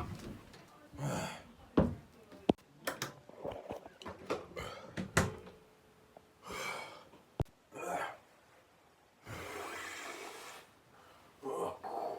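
A person blowing puffs of air onto a tissue: several short breathy blows and one longer steady blow about nine seconds in, with sharp clicks and knocks in between.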